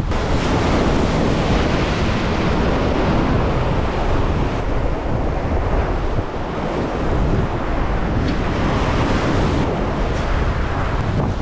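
Strong wind buffeting the microphone with a deep rumble, over the steady wash of ocean surf on the shore.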